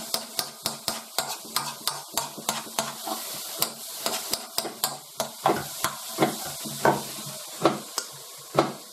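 Shaggy ink cap mushrooms sizzling as they fry in a wok, with their juices drained off. A metal spoon stirs them, scraping and clicking against the pan about three or four times a second.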